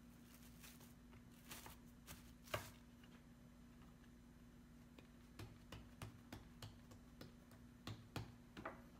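Faint rustle and crinkle of plastic cling film being lifted off dough balls, then a series of soft pats and taps from about five seconds in as hands press a ball of purple sweet potato bread dough flat on a bamboo board, over a low steady hum.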